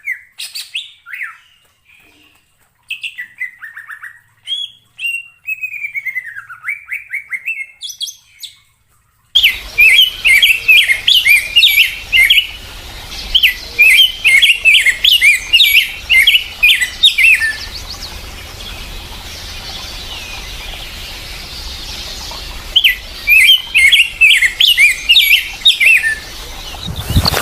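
Birds chirping. First come a few separate chirps and sliding whistles with silence between them. About nine seconds in there is an abrupt switch to a recording with a steady background hiss, where rapid, loud chattering phrases of chirps repeat in several bouts a few seconds long.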